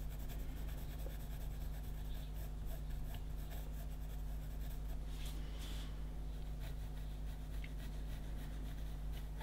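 Pencil scratching on paper in faint, irregular shading strokes, a little louder about five seconds in, over a steady low hum.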